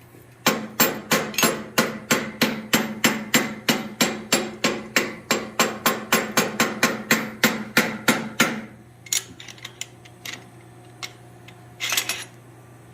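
Hand hammer striking hot steel on an anvil in a steady rhythm of about three to four blows a second for some eight seconds, then a few lighter taps and a brief clatter near the end.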